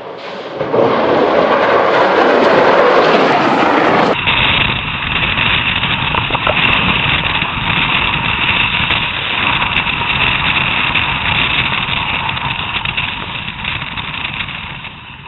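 A bobsleigh speeding down an ice track, heard from on board: a steady loud rush of the runners scraping and rumbling on the ice, mixed with wind. It follows about four seconds of a separate recording: a swelling rush that cuts off suddenly.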